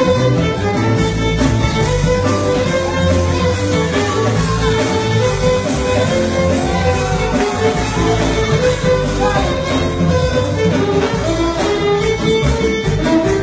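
Violin played live over a loud backing track with a steady beat and bass; the violin melody slides between notes in a folk-dance style.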